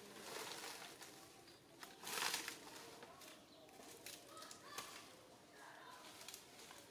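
Faint rustling and snapping of dry leaves and twigs as macaques climb about, loudest in a brief rustle about two seconds in, with scattered sharp clicks and a few faint high chirps later on.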